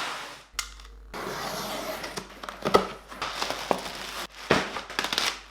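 Packaging of a camera bag being handled and opened: irregular rustling and crinkling with several sharp clicks and short scrapes.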